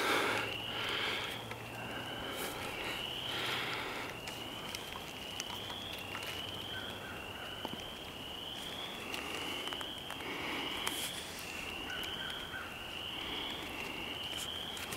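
An animal calling: a short, rising, high-pitched note repeated steadily about once a second.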